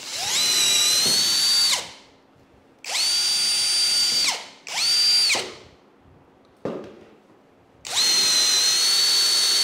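JPT 21-volt cordless drill with a brushless DC motor, driving a 5 mm bit into a wooden block. It runs in four trigger-pulls, each a high steady whine that spins up quickly and winds down when released, with a short blip between the third and fourth runs.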